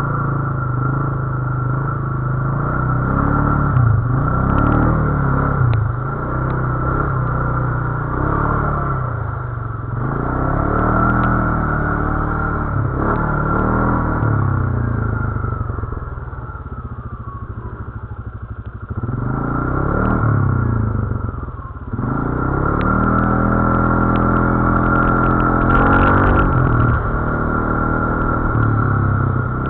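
ATV engine being ridden off-road, its pitch repeatedly rising and falling as the throttle is opened and closed. It eases off for a few seconds past the middle, then picks up again.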